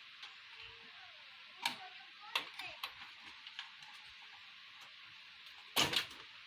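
Scattered sharp clicks and light knocks from hands working on a desktop computer's system unit, with a louder double click near the end, over a steady hiss.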